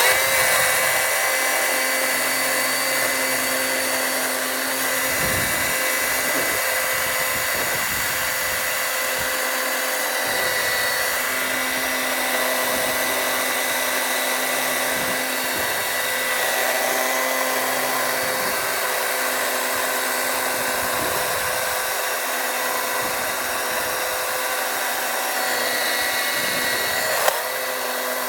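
Milwaukee electric chainsaw switching on abruptly and running steadily at full speed, a constant high motor-and-chain whine.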